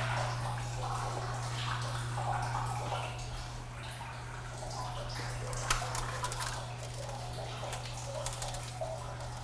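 Water gurgling and splashing in an open wastewater treatment tank riser, over a steady low hum, with a few small clicks of handling.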